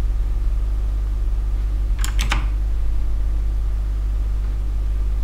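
Steady low electrical hum, with a quick cluster of three or four sharp clicks about two seconds in.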